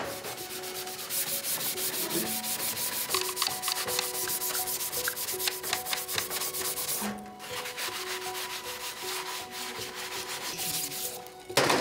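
Sanding pad rubbed rapidly back and forth by hand over a plastic motorcycle body panel, a dense scratchy rasping with a short pause about seven seconds in. It is the scuff-sanding of the part's surface ahead of hydro dipping.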